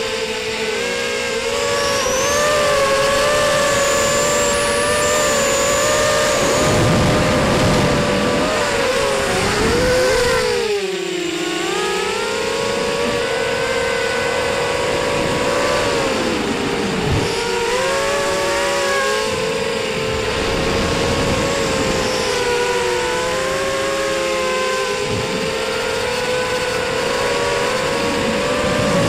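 Whine of a ZMR250 racing quadcopter's four T-Motor 1806 2300kv brushless motors spinning 5x4 props, heard from on board over wind rush. The pitch rises and falls with the throttle, with a sharp drop about eleven seconds in and a climb back up.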